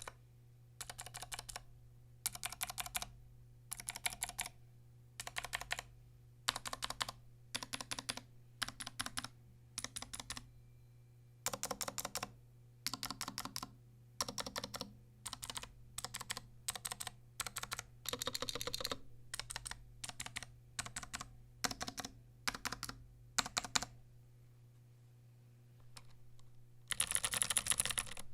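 Typing on a Vortex Model M SSK keyboard with Cherry MX Blue clicky switches on an aluminium plate and no foam inside: short bursts of crisp keystroke clicks, word by word with brief pauses, becoming a faster, denser run near the end. A steady low hum sits underneath.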